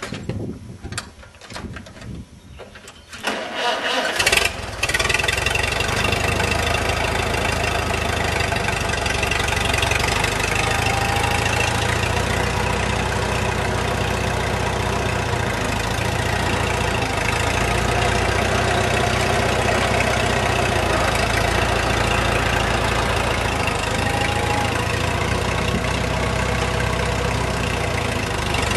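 1954 Farmall Super H's four-cylinder gasoline engine being cranked over in uneven bursts, catching about four seconds in and then running steadily.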